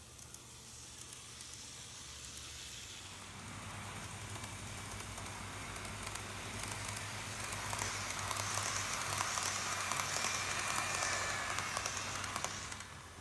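N-gauge model train running along its track: a crackly rolling rattle with a faint motor whine, growing louder as the train approaches and passes, then dropping off suddenly near the end.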